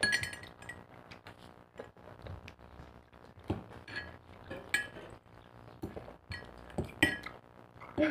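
Metal spoons clinking and scraping against thick glass mugs as pieces of papaya are scooped out, several sharp clinks with a brief ring at irregular intervals.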